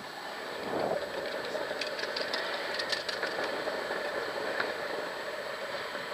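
Longboard wheels rolling over asphalt, a steady rumble, with a few light clicks and rattles from about two to three and a half seconds in.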